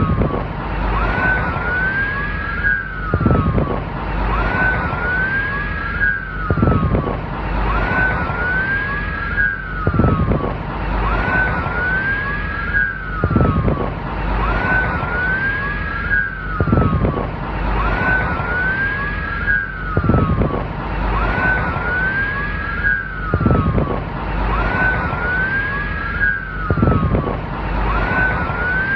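Police car siren wailing, its pitch sweeping up and down in short overlapping arcs, the pattern repeating about every three seconds over a steady noisy background.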